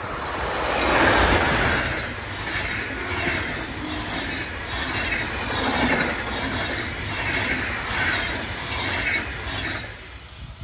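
Electric locomotive and a long train of passenger coaches passing at speed: a rushing of steel wheels on rail, loudest about a second in, with a rhythmic clatter as each bogie goes over. The sound drops away abruptly near the end.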